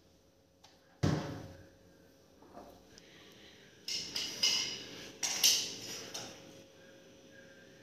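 A hard knock about a second in, as a plastic storage container is set down on a stone kitchen counter, then a short run of bright clinks and clatters of kitchen items around four to six seconds in.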